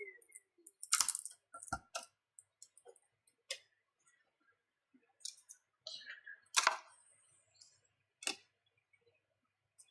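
Scattered sharp clicks and taps of small repair tools and the tablet's hard frame being handled on the bench, about seven in all, loudest about a second in and again past the middle.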